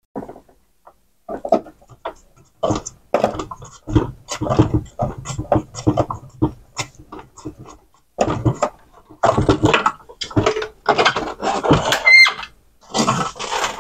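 Plastic parts of a Sony CDP-CX355 CD changer being handled and fitted back into its open metal chassis: irregular clicks, knocks and rattles, busier in the second half, with a short squeak near the end.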